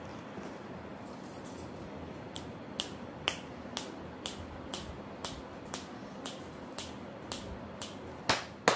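A person making a steady series of sharp clicks, about two a second, to call a toddler over; the last two, near the end, are louder.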